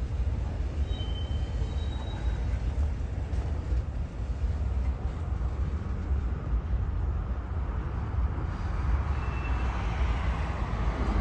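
Freight train cars rolling past on the rails: a steady, continuous low rumble.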